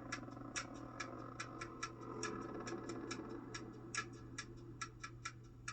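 Light ticking clicks, about four to five a second and not perfectly even, over a faint steady low hum: a ticking bed under the story's narration.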